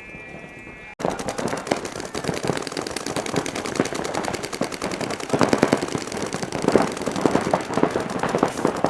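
Paintball markers firing in rapid streams of popping shots, several guns at once, starting abruptly about a second in and growing louder toward the end.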